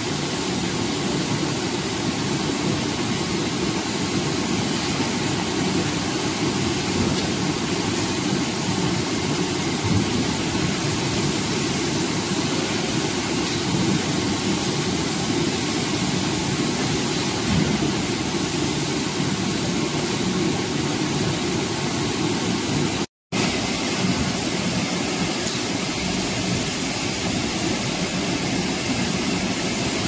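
Industrial air-bubble sweet corn washing machine running: a steady, unchanging mechanical noise from its air blower, agitated wash water and mesh belt conveyor drive. The sound cuts out for an instant about three quarters of the way through.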